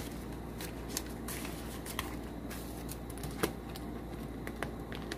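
Clear vinyl binder pocket and paper bills being handled as cash is tucked into the pocket: scattered light clicks and crinkles, over a low steady hum.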